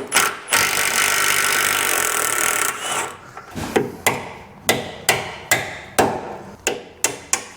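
A steady hiss for about two seconds, then a hammer striking metal again and again, around ten sharp blows about half a second apart. The blows fall on the steering-arm fittings of a Range Rover Classic front axle as it is being stripped.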